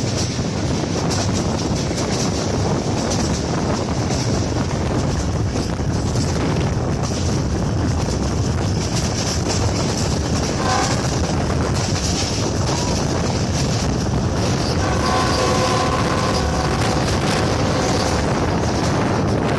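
Train running at speed, a steady rumble with wheel clatter on the rails. Its horn sounds briefly about halfway through, then again in a steady blast of about three and a half seconds near the end.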